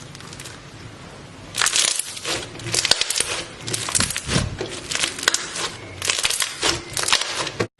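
Slime being squeezed and pressed by hand, crackling with dense clicks in about six bursts that start about a second and a half in. The sound cuts off suddenly near the end.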